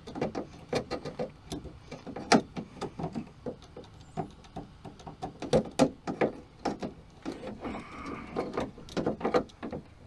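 Irregular clicks and knocks of a hand screwdriver driving a screw that holds the door lock cylinder to its bracket inside a car door, with the tool and hand knocking against the door's metal inner panel.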